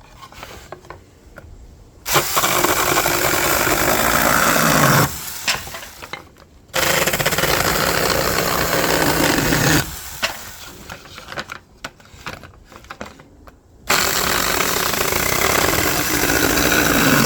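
Kimo 20 V cordless 6-inch mini chainsaw running and cutting through thin wood in three bursts of about three seconds each, with quieter handling sounds between them.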